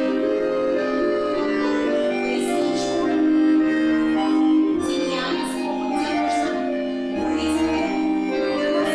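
Live accordion playing a folk-style dance tune: long held chords with a melody over them.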